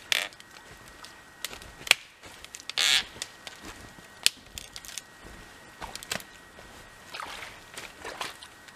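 Scattered sharp clicks and short rustling, scraping noises from a person working by hand in a shallow creek, irregular and a second or so apart; the loudest is a brief scrape about three seconds in.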